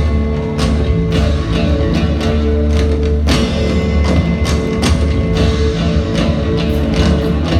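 Live fusion rock band playing: steady held bass and sustained tones under repeated percussion strikes.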